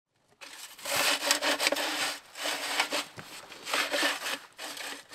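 Hand saw cutting wood in repeated back-and-forth rasping strokes, starting about a second in.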